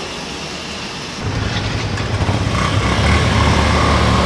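Motorcycle engine running at low revs. It comes in suddenly about a second in and then runs steadily, slightly louder.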